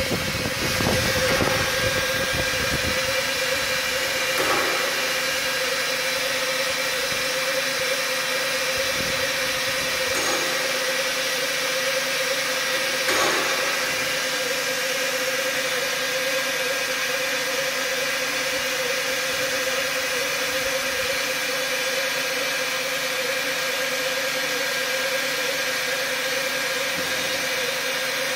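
FEBA F600 single-knife lathe slitter running while slitting a foam log: a steady machine hum with a constant mid-pitched whine over a hiss. A few faint short swishes come about 4, 10 and 13 seconds in.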